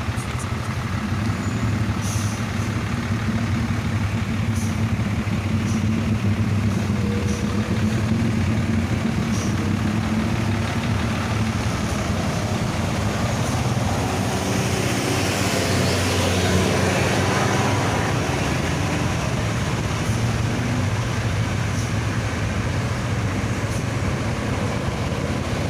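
Large bus's diesel engine running steadily on the road, with tyre and road noise that swells for a few seconds around the middle.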